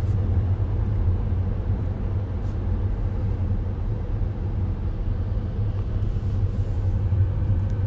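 Steady low rumble of a car driving slowly, heard from inside the cabin: engine and road noise with no distinct events.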